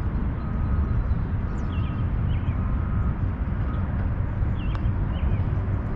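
Wind rumbling on the microphone, with a few short bird chirps scattered through it.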